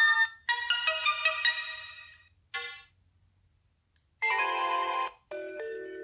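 Sony Xperia Z notification tones previewed one after another. The tail of one chime cuts off just after the start, then comes a run of bright melodic notes lasting about two seconds and a brief blip. After a pause of over a second, two more short tones follow.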